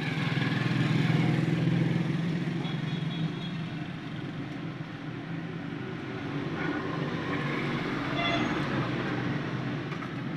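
Low steady hum of a vehicle engine running, louder in the first two seconds and then easing a little.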